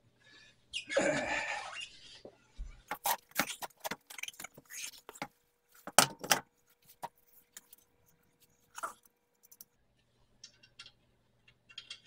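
A car wheel being hung on the hub studs by hand: a rustle and a dull thump as it goes on, then a run of sharp metal clinks and knocks of the rim on the studs and lug nuts being handled, sparser towards the end.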